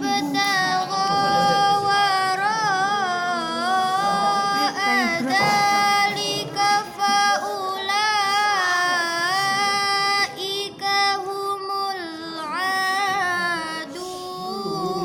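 A high, clear voice chanting Quranic recitation in a melismatic style: long held notes with wavering, ornamented turns and a few short breaths between phrases.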